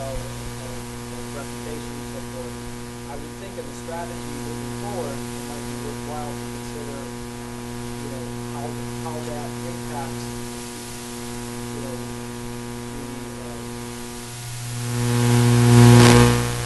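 Steady electrical mains hum, a low buzz with a stack of overtones, running through the sound system. Near the end it swells sharply for about a second with a crackle, then drops back.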